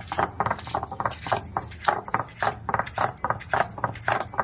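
Stone roller rocked and pressed over a flat sil-batta grinding slab, crushing chopped raw cucumber, onion and green chilli into chutney: a quick, steady rhythm of stone-on-stone knocks and scrapes.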